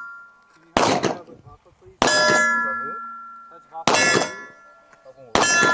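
Four handgun shots striking steel targets, about one to two seconds apart, each hit leaving the steel plate ringing as it fades.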